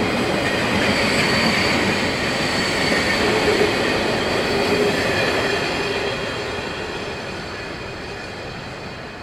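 Narrow-gauge passenger coaches rolling past on the rails, with a thin wheel squeal over the rumble. The sound fades steadily from about six seconds in as the train draws away.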